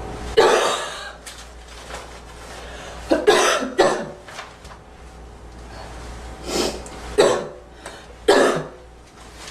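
A girl coughing: about six sharp coughs, singly and in close pairs, with pauses of a second or two between them.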